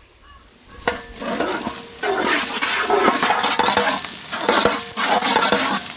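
Freshly added green chillies, with shallots, garlic and curry leaves, sizzling in hot sesame oil in a large pot while being stirred with a ladle. A quiet first second, then a steady frying hiss with scattered scrapes and clicks from about a second in.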